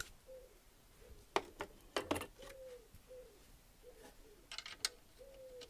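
Metal clicks and knocks of a spanner and bolts being worked on a Hayterette mower's Briggs & Stratton engine, a few sharp taps in clusters. Behind them, a soft low cooing repeats about every half second.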